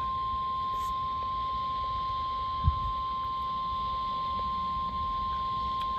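NOAA Weather Radio 1050 Hz warning alarm tone, one steady unbroken tone over receiver hiss, sounding as part of the required weekly test. A brief low thump comes a little under halfway through.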